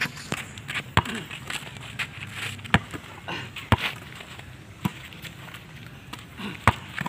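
A basketball being dribbled on a packed-dirt court: sharp, separate bounces at uneven gaps of one to two seconds, with lighter taps and scuffs in between.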